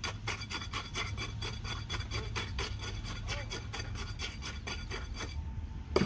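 Tamping rod plunged again and again into fresh concrete in a cylinder test mould, rodding the sample to consolidate it: quick, even knocking and scraping strokes, several a second, that stop about five seconds in. A single sharp knock near the end.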